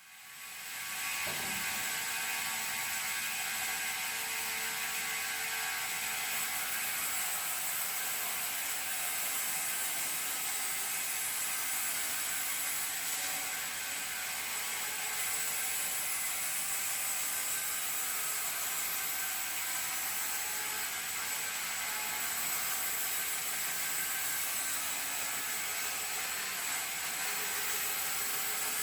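A machine running with a steady whir, fading in over the first second or so and then holding level.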